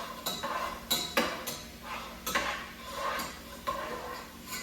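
A spoon stirring in a cooking pot, clinking and scraping against the pot's sides and bottom about twice a second with a metallic ring.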